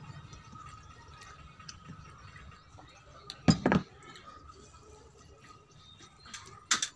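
Fingers mixing and mashing rice with curry on a stainless steel plate, with soft wet squishing. Two sharp clatters, a double one about three and a half seconds in and another near the end, come from the hand and metal plate or bowl knocking together.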